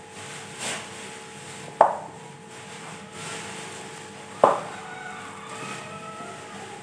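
Hands mixing a crumbly mashed-potato, breadcrumb and egg mixture in a glass bowl, a quiet handling sound broken by two sharp knocks about two and a half seconds apart.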